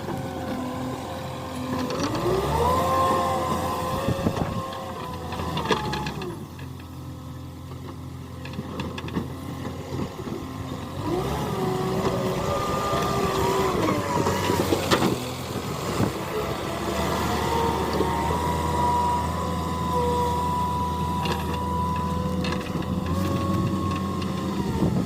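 JCB 3DX Eco backhoe loader's diesel engine revving up and holding under hydraulic load three times, dropping back to a lower run between, with a few short knocks from the machine working.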